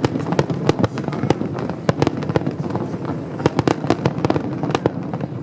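Fireworks going off: a dense, irregular crackle of many sharp bangs, several a second, with a few louder reports among them, over a steady low rumble.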